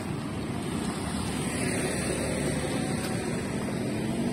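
Road traffic: cars driving past close by, a steady mix of engine and tyre noise.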